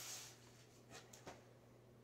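Near silence, with faint rustling and a few soft ticks as a folded t-shirt is handled and unwrapped.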